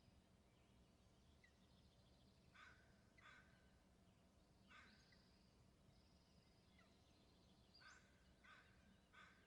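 Eagle giving short, sharp calls in loose groups: two, then one, then three in quick succession.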